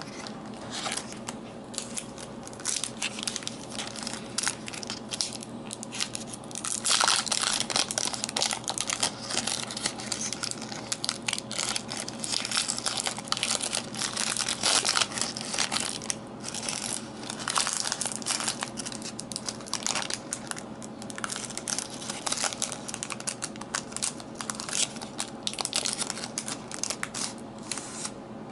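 Foil wrapper of a trading card pack torn open and crinkled by hand: a long run of crackling and crinkling, loudest about a quarter of the way in and again near the middle.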